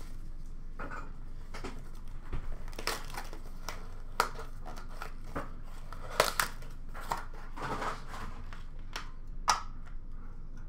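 Hand-opened hockey card box and plastic card holders being handled: irregular crinkling and crackling of packaging, with several sharp clicks, the loudest a few seconds in, around the middle and near the end.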